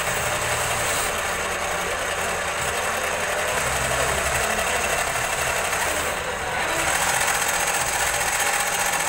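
Semi-automatic tape cutting machine running, a steady mechanical noise, with a short dip about six seconds in.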